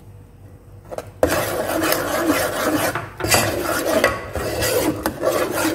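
Metal spoon scraping and stirring thick semolina halwa against the sides and bottom of a metal pot. The scraping starts about a second in and keeps going, with a short break near the middle.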